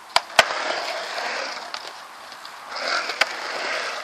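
Skateboard on a concrete mini ramp: two sharp clacks of the board and trucks hitting the coping just after the start, then the wheels rolling over the concrete. The rolling swells near the end, with another clack partway through it.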